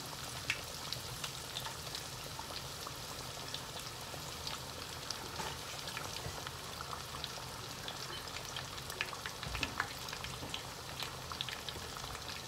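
Coated chicken breast frying in canola oil in a stainless steel skillet, just put into the hot oil: a steady sizzle with many small scattered pops.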